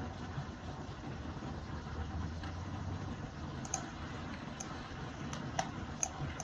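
Steady low background hum with a handful of faint, short clicks in the second half, as from a computer mouse being clicked while the model is rotated.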